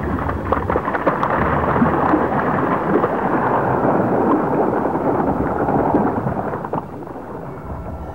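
Muddy water and sand pouring from a metal pan over a hand, a steady gritty splashing with scattered small clicks that fades away near the end.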